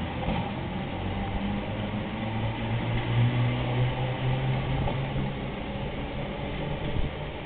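Echizen Railway electric train with nose-suspended (tsurikake) traction motors running: a low motor drone over a rumbling haze, swelling about three seconds in and easing off toward the end.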